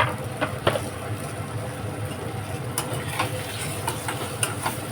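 Metal spoon clinking and scraping in a cooking pot as spices are stirred in, a dozen or so sharp clicks over a steady low hum from the kitchen.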